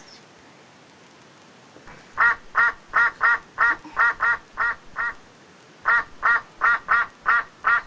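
Duck quacking in a rapid, even series of short calls, about three a second, starting about two seconds in, with a short pause midway.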